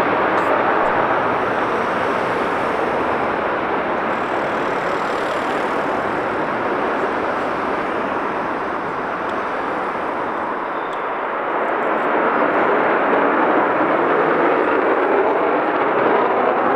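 Single-engine F-16 fighter jet taking off on full afterburner: loud, steady jet noise that eases slightly partway through and swells again as the jet lifts off and climbs away.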